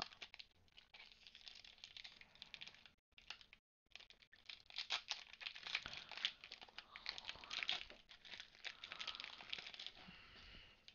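Foil wrapper of a Pokémon card booster pack crinkling and tearing as it is handled and opened: a long run of soft, dense crackles that cuts out twice, briefly, about three seconds in.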